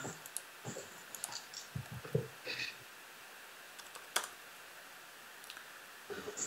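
Scattered computer keyboard keystrokes and mouse clicks as AutoCAD commands are entered and undone, with quiet gaps between them; the sharpest click comes about four seconds in.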